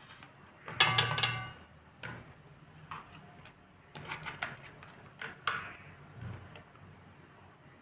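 Scattered clicks and knocks of kitchen things and the handheld phone being handled, with the loudest clatter about a second in, briefly ringing, then single light taps every second or so.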